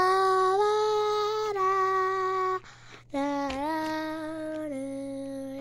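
A child singing two long held notes, the second lower than the first, with a brief break between them about three seconds in.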